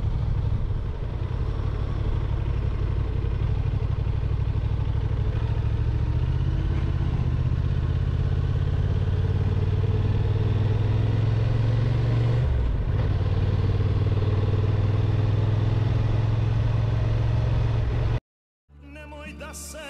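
Motorcycle engine running at road speed, heard from the bike with wind noise on the microphone. The engine note holds steady with a brief dip about two-thirds through. It cuts off suddenly near the end, and music with singing starts.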